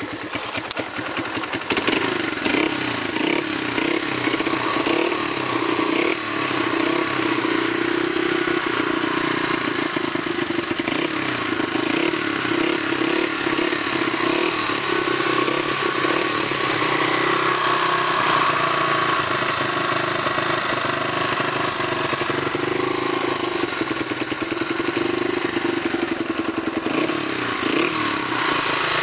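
Honda XR80R's 80cc four-stroke single-cylinder engine running after a top-end rebuild with a new piston, rings and valves. Its revs rise and fall several times in the first few seconds and again near the end, between steadier running.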